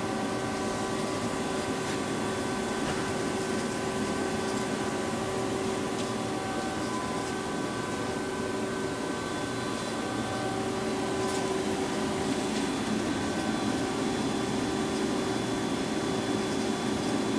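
Lucas horizontal boring mill running with a steady machine hum and several steady tones, a few of which fade in and out.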